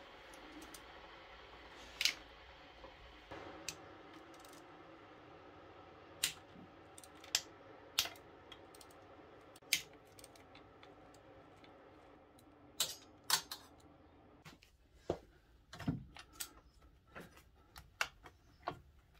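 Sharp metallic clicks and clinks of hand tools working on a pit bike's engine casing, scattered irregularly, with a faint steady hum beneath that stops about three-quarters of the way through.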